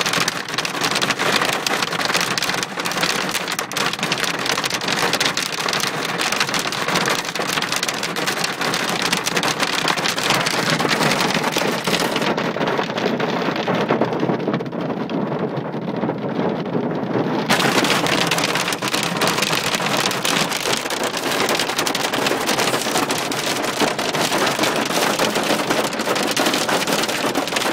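Heavy hail pelting down: a dense, continuous clatter of hailstones striking surfaces.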